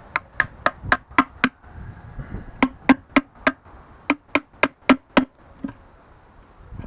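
Hammer blows on the LT230 transfer case: three quick runs of six, four and five sharp knocks, about four a second, each with a short ringing note.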